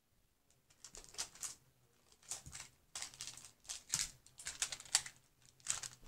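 Plastic magnetic building tiles clicking and clattering as they are picked through and handled, a run of irregular clicks starting about a second in.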